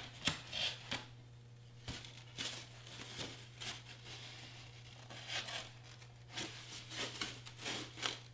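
Hobby knife blade cutting through foam board in a series of short scratchy strokes, one or two a second, as the cut is pushed all the way through the board.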